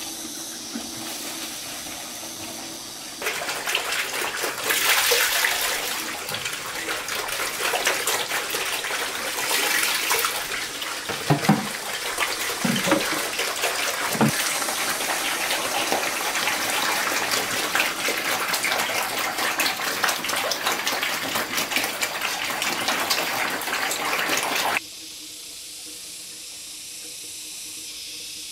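Water running and splashing, starting abruptly a few seconds in and cutting off abruptly near the end, with a few low thumps in the middle; a fainter steady hiss before and after it.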